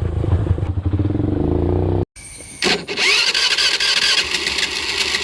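Benelli TNT 15's 148cc air-cooled four-stroke single, fitted with an aftermarket exhaust with its silencer removed, running at a steady low idle. It cuts off suddenly about two seconds in, and after a short gap comes back as a louder, hissier sound with a brief rising whine.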